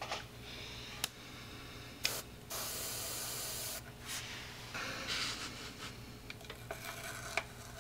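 Airbrush spraying paint in two bursts of hiss about two seconds in, the second lasting about a second and a half. Near the end, masking tape rustles and crinkles as it is peeled off the model.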